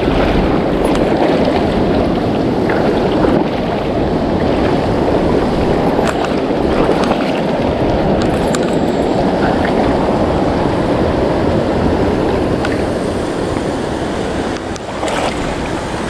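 Rushing river water: a steady, loud rush of current, with a few short faint clicks over it.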